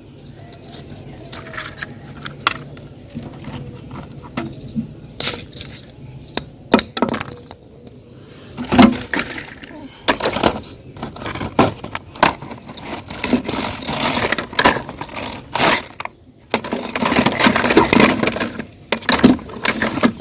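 Plastic toy vehicles being handled and knocked together: irregular clicks, knocks and rattles, with a few louder clattering stretches about nine seconds in and again near the end.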